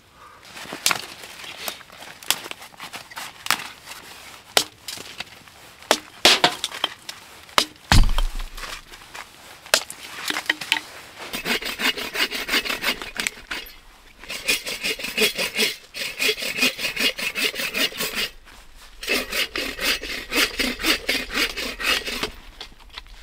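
Dead branches snapping and cracking, with a heavy thump about eight seconds in. Then a hand saw cuts through dead branch wood for firewood in three runs of quick back-and-forth strokes with short pauses between them.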